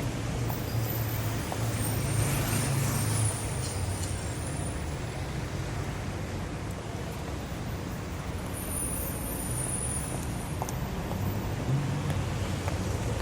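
City street traffic: a steady wash of passing cars and engines, with a heavier engine rumble in the first few seconds and again near the end, and faint high squeals now and then.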